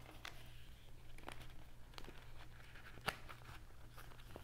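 A stack of cards being slid into a Louis Vuitton Monogram Empreinte leather business card holder. Faint rustling with a few soft clicks, the sharpest about three seconds in.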